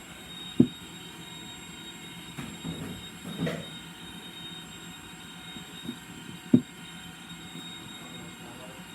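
Two sharp knocks about six seconds apart, with light handling rustle between them, over a steady background hum.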